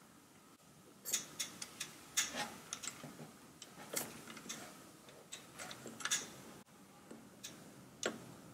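Irregular light clicks and taps of fingers handling small metal parts in a Revox B77 reel-to-reel deck's tape transport, while a new rubber counter belt is worked around the reel brake drum and brake band. The clicks start about a second in.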